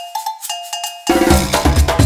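Latin-style intro music: a cowbell-like bell taps a quick rhythm on two alternating pitches, and about a second in the full band crashes in with heavy drums.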